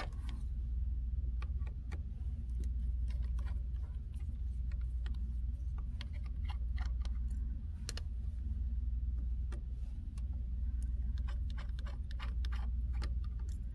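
Scattered small, sharp metal clicks of a T4 precision screwdriver tip seating in and turning tiny screws in a MacBook Pro's case, over a steady low hum.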